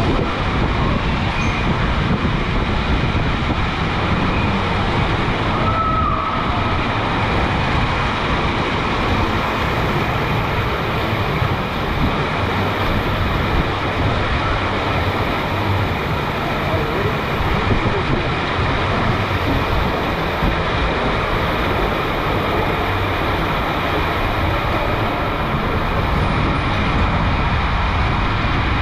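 Water and a rider's inner tube rushing down an enclosed, pitch-black WhiteWater West Giant AquaTube water slide: a loud, steady rumbling rush inside the tube.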